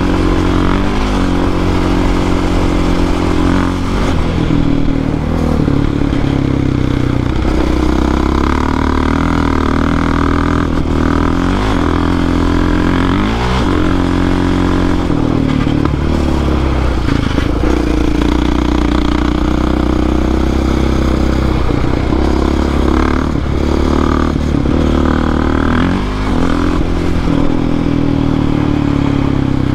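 ATV engine running under way on a trail, its pitch climbing and dropping again and again with throttle and gear changes, with several quick rises in revs.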